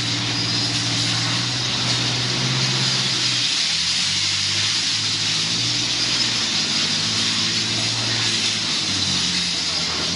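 Belt conveyor of a glass-cullet crushing plant running just after start-up: a loud, steady machine noise with a strong hiss, over low tones that shift in pitch every second or so.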